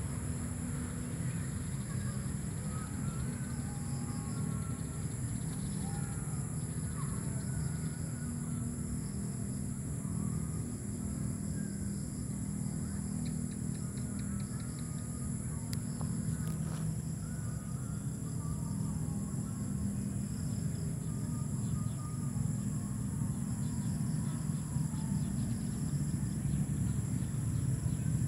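Outdoor ambience: birds chirping now and then over a constant high-pitched insect drone, with a steady low rumble underneath.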